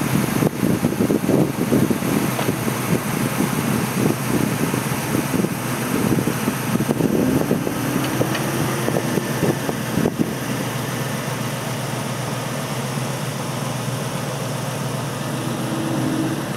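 Car engine revving and easing off as it is driven hard through an autocross cone course, with gusty wind buffeting the microphone, heaviest in the first half.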